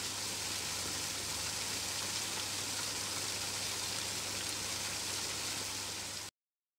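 Steady rushing hiss with a faint low hum beneath it, cut off abruptly shortly before the end.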